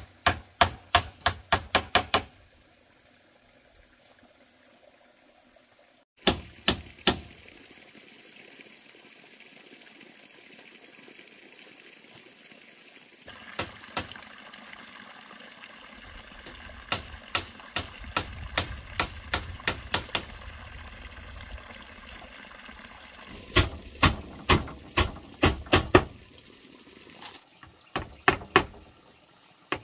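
Runs of quick, sharp hand-tool strikes on bamboo, about four or five a second. The first run is near the start, a short one comes about a fifth of the way in, and the loudest comes about three quarters through, with lighter knocks in between.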